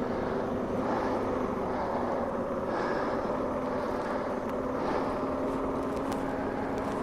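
Steady engine and road noise heard from inside a car cabin while driving, an even hum with no change in pace.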